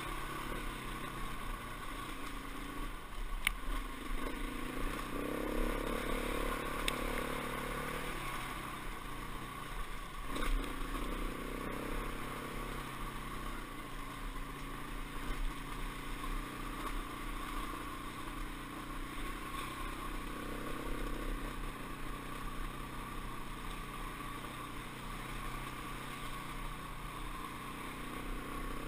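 Dirt bike engine running as the bike is ridden over a rough dirt trail, its pitch rising and falling with the throttle. A few sharp knocks from the bike on the rough ground, about three and a half, seven and ten and a half seconds in.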